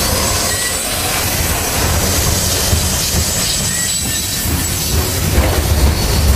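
Last freight cars of a passing train rolling by, steel wheels on the rails, with a few faint brief squeals; after the last car is gone a heavy low rumble carries on and grows louder near the end.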